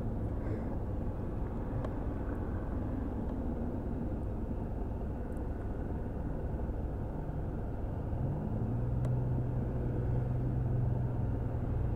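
Suzuki Burgman scooter idling at a stop with road traffic rumbling past. About eight seconds in, a low hum rises in pitch and then holds steady.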